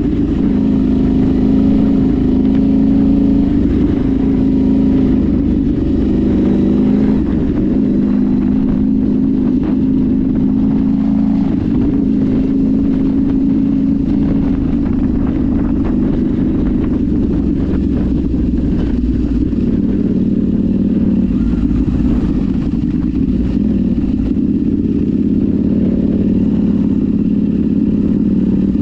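Off-road vehicle engine running under changing throttle, its pitch stepping up and down, with scattered knocks and rattles from rough ground.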